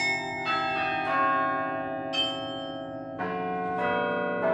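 Carillon bells played from the baton keyboard: a slow melody of single struck notes about a second apart, each bell ringing on and overlapping the next.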